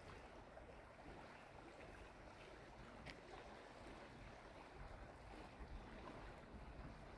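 Near silence: the faint, steady rush of a fast-flowing river, with a low rumble underneath.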